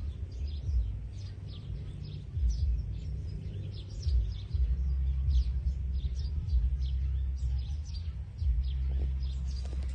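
Outdoor wind rumbling on the microphone, loud and uneven, with many short high chirps scattered through it, a few each second.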